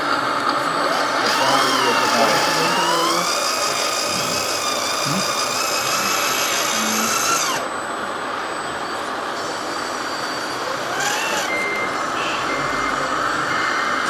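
Small electric motors and hydraulic pumps of RC construction models whining, rising and falling in pitch as they work, over a dense steady hiss. Near the end a reversing beeper sounds a steady series of short beeps.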